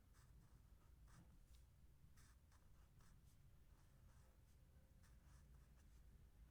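Faint scratching of a pen writing on paper, in short separate strokes, over a low steady room rumble.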